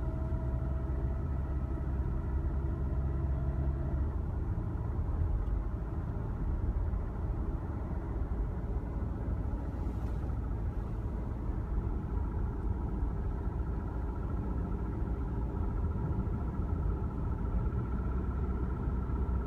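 Toyota Camry four-cylinder engine idling steadily after sitting and cooling down, the cold condition in which the owner hears valve or lifter noise. A steady tone in its sound drops away about four seconds in.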